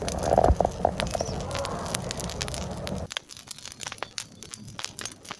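Open wood fire crackling under a steel pan, with many sharp irregular pops. A duller background noise under the pops drops away about three seconds in.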